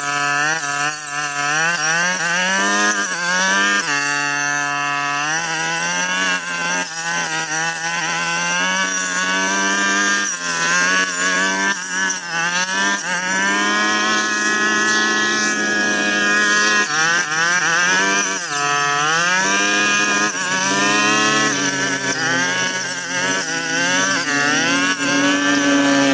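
Petrol brush cutter engine running at high revs, its pitch repeatedly dipping and recovering as the blade bites into thick brush.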